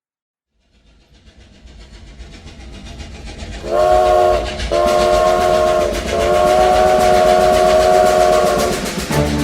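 Train sound effect: a rumble that builds up as a train draws near, then a chord-toned train whistle blowing three blasts, the last one long. Music starts near the end.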